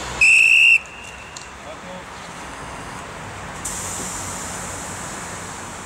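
One short, shrill whistle blast of about half a second: a railway conductor's whistle giving the departure signal for an EN57 electric multiple unit. A steady high hiss sets in a few seconds later over a low background rumble.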